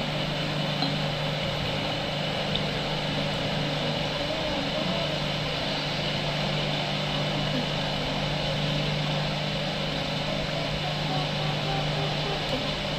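Steady mechanical hum of a running household appliance motor, a low drone that holds even throughout.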